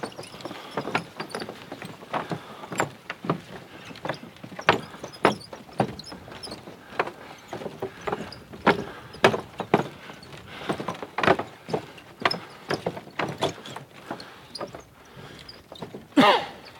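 Footsteps knocking on the planks of a wooden boardwalk, a step or two a second. Near the end comes a louder creaking squeak that falls in pitch.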